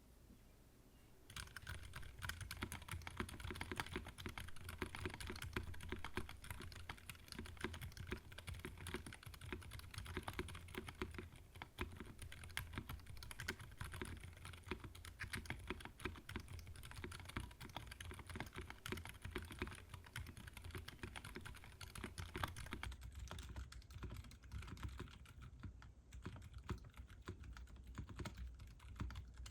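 Typing on a Mode Envoy mechanical keyboard fitted with HMX Silent Sakura silent linear switches, pre-lubed, with rubber dampers in the stem rails to soften bottom-out and top-out. A continuous run of fast keystrokes starts about a second in.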